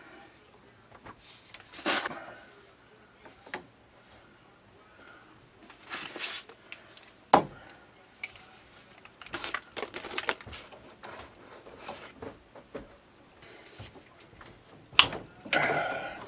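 Hands handling PEX tubing and a brass fitting: scattered rustles, taps and clicks of plastic pipe and metal parts, then a sharp clack and a short burst of metal noise near the end as a PEX crimping tool closes the ring onto the fitting.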